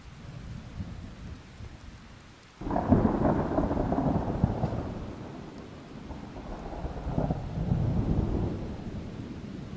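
Thunder: a low rumble, then a sudden loud clap about two and a half seconds in that rolls off over several seconds, with a second rolling swell near the end.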